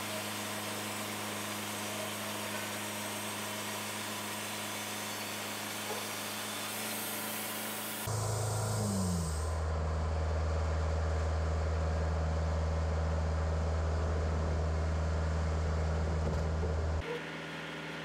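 Engine of a Wood-Mizer portable bandsaw sawmill running at a steady pitch. About eight seconds in the sound switches abruptly to a louder, deeper steady hum, opening with a brief falling whine, and switches back just before the end.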